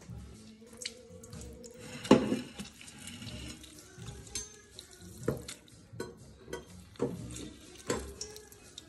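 Kitchen tap running into a stainless steel sink, with several sharp knocks and clatters of things handled under the water.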